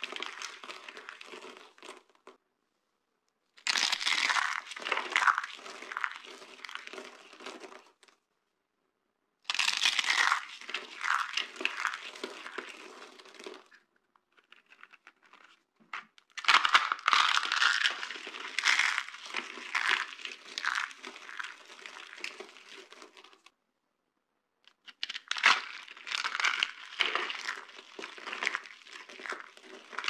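Dry carved soap shapes and soap flakes crushed and crumbled by hand: dense crackling and crunching, in five stretches broken by short silences.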